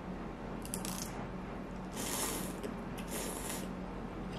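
A person slurping instant noodles, two hissing slurps about two and three seconds in, after a few faint clicks.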